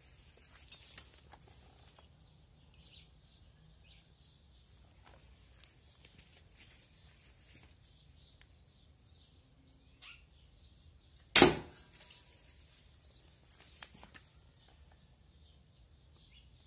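A single shot from a Barra 1866 Cowboy lever-action CO2 BB rifle about eleven seconds in, a sharp crack that dies away quickly, followed some two and a half seconds later by a lighter click. Faint ticks and rustles fill the rest.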